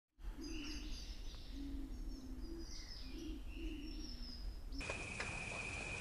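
Birds chirping and calling in short high notes. About five seconds in, the sound switches abruptly to a steady high-pitched trill with scattered light clicks.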